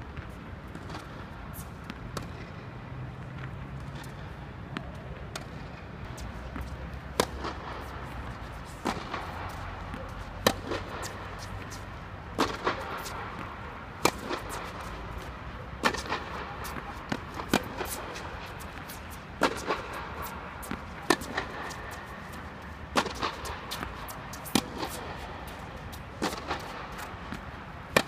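Tennis balls struck by rackets and bouncing on the court, a sharp pop every one to two seconds, often in close pairs of bounce and hit, as in a rally or hitting drill.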